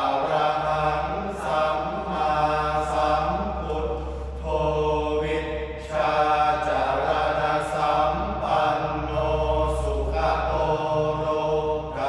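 Group of young men chanting Sarabhanya, the Thai Buddhist melodic recitation, together in unison with long held notes and a brief pause for breath about six seconds in.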